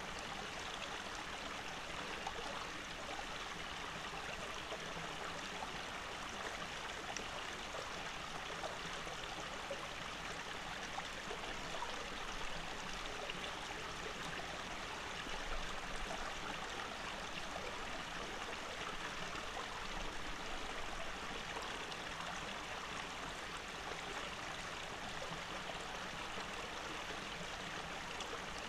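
Shallow forest stream running over rocks: a steady, even sound of flowing water.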